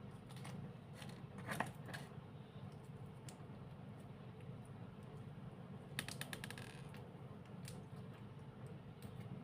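Faint clicks and taps of hands handling a slime and its plastic packaging, with a cluster of clicks about one and a half seconds in and a quick run of clicks about six seconds in, over a steady low hum.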